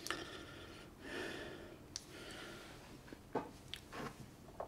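Faint breathing through the nose, two soft breaths near the start, then a few light clicks.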